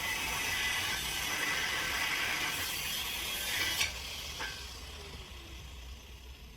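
Steady scratchy rubbing or scraping that stops with a sharp click about four seconds in, then one more light click.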